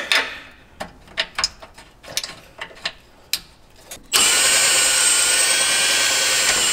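A few light metal clicks and knocks as the track bar end is worked into its mount. About four seconds in, a handheld power tool starts suddenly and runs at a steady speed for about three seconds.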